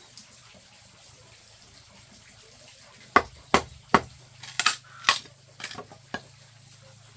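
A run of about eight sharp knocks over three seconds, unevenly spaced, beginning about three seconds in after a quiet start.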